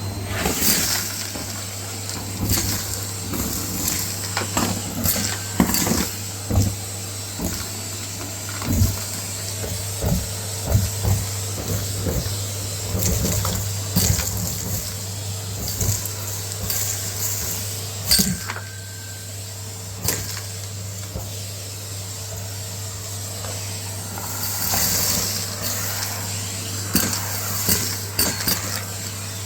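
Numatic Hetty cylinder vacuum running with a steady hum while it sucks up a crunchy dry dirt mix. Grit clicks and crackles irregularly through the tool and hose, thicker for a couple of seconds near the end.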